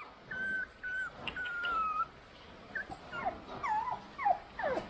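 Young puppy whimpering in thin, high cries, the whimpering of a frightened pup. A few longer, held whines come in the first two seconds, then a run of short falling whimpers.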